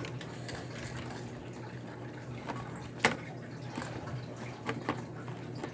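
Small plastic laptop parts being handled and fitted into an iBook G4, with a few sharp clicks, the loudest about three seconds in and another right at the end, over a steady low hum and hiss.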